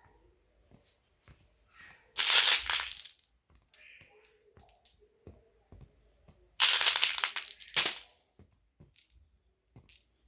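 Marbles clattering as a handful is poured, in two rushes of about a second each, with scattered single clicks between them.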